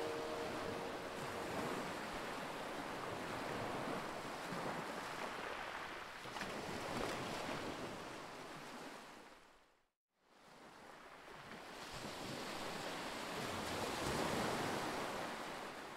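Sea waves washing on the shore, with some wind, swelling and easing slowly; the sound cuts out briefly about ten seconds in, then returns and fades near the end.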